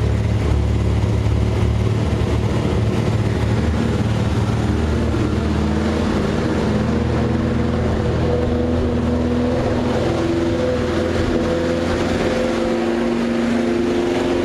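BMW 2002's four-cylinder engine idling steadily while it warms up from a cold start on its automatic choke, the idle being brought down partway through.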